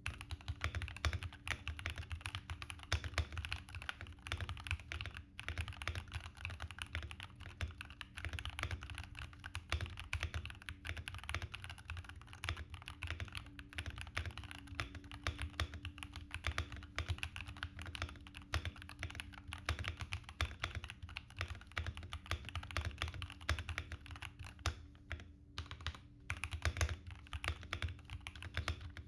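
Continuous fast typing on a Royal Kludge RK84 80% mechanical keyboard: a dense run of key-switch clicks and keycap strikes, with a short pause about twenty-five seconds in.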